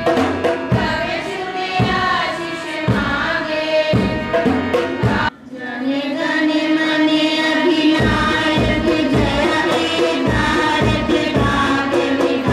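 A group of girls singing together in unison over microphones, accompanied by a harmonium and a steady drum beat. There is a brief break about five seconds in, then the singing carries on.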